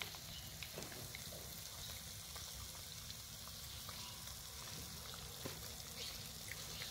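Faint steady hiss of room noise, with a few soft clicks scattered through it.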